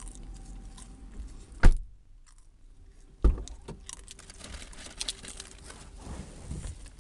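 Two loud sharp thumps about a second and a half apart, over a low background of small clicks and handling noise.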